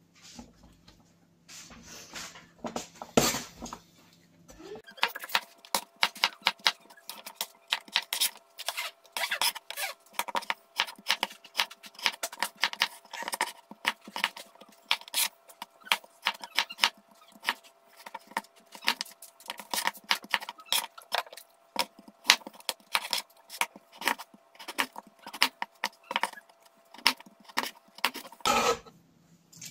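A large kitchen knife chopping raw potatoes into chips on a plastic chopping board. It starts with a few separate knocks, then from about five seconds in a long run of quick sharp knocks of the blade on the board, several a second, which stops near the end. A faint steady hum sits under the chopping.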